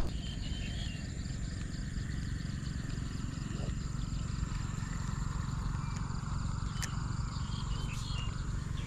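Outdoor ambience: a steady low rumble under a constant high insect drone, with a few faint chirps and one sharp click about seven seconds in.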